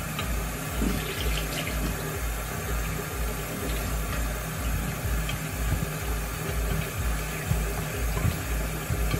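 Kitchen faucet running steadily into a stainless-steel sink as vegetables are rinsed by hand under the stream. A low, regular pulse comes about twice a second underneath.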